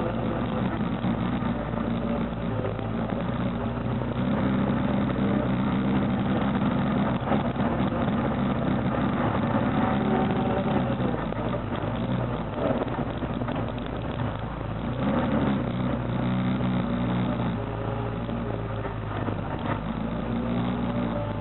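ATV's single-cylinder four-stroke engine running while riding a dirt trail, its revs rising and falling with the throttle.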